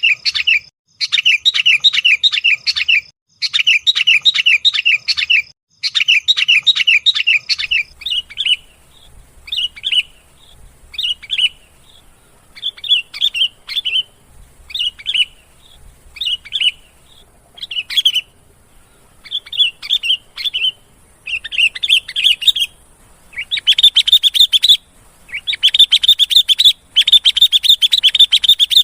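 Sooty-headed bulbul (kutilang) calling. Rapid chattering phrases with short pauses run for the first several seconds, then short single calls come about once a second, and longer chattering bursts return near the end.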